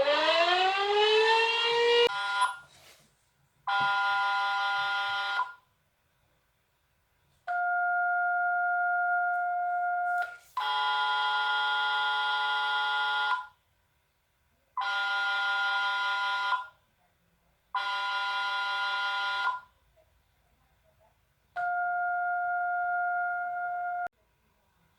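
Electronic alert tones of a mock Emergency Alert System broadcast: a rising siren-like sweep that ends about two seconds in, then six steady, chord-like beeps of two to three seconds each, separated by short silences.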